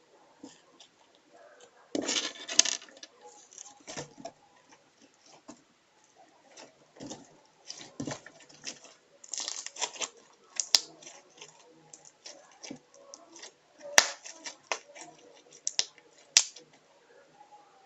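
Homemade slime being squeezed and poked by hand, giving irregular sticky crackles and sharp little pops, with a longer crackling squelch about two seconds in.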